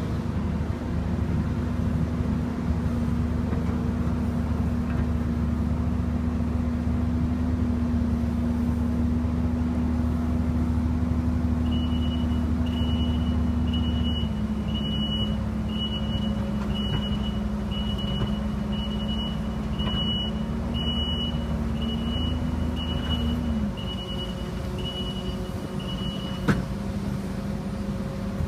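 A heavy vehicle's engine running steadily, its note dropping about halfway through and again near the end. From about halfway on, a backup alarm beeps about once a second while the vehicle reverses.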